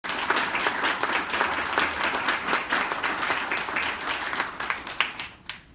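Audience applauding: dense clapping that thins to a few last claps and stops near the end.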